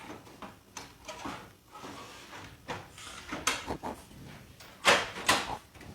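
Plastic clicks, knocks and sliding scrapes as a Ricoh Aficio MP2501 copier's photoconductor unit is handled, with two louder knocks near the end.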